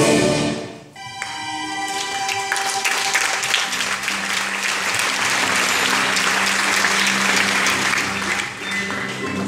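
Recorded orchestral music ends about a second in, and an audience applauds for the rest.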